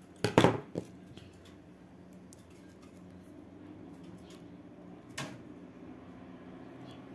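Metal scissors snipping: a few sharp clicks about half a second in. After that, a quiet stretch with one soft tap about five seconds in.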